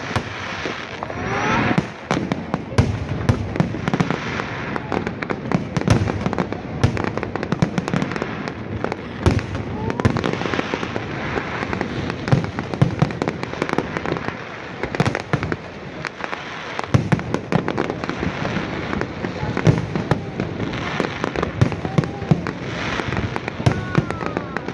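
Fireworks display: aerial shells bursting in rapid, continuous bangs and crackles, with people talking underneath.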